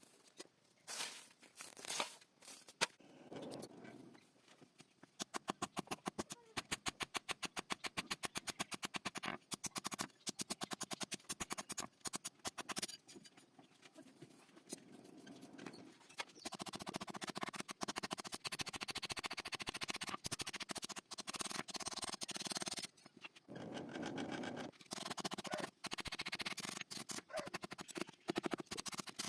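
Blacksmith working a sickle blade by hand: a run of quick, even metal strikes, about five a second, then long stretches of continuous rasping scraping on the metal.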